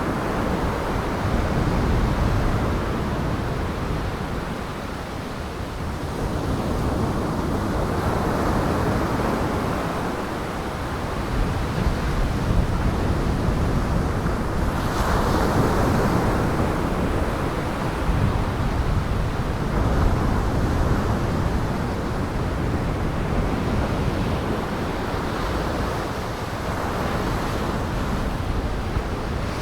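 Heavy storm surf on Lake Michigan breaking in strong wind: a steady rushing roar, heaviest in the low end, that swells and eases every several seconds.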